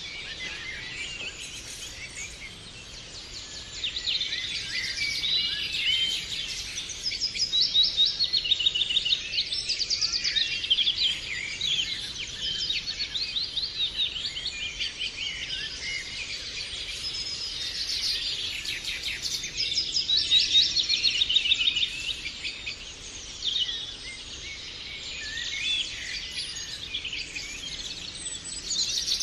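Birds chirping and trilling, many short high calls overlapping without a break.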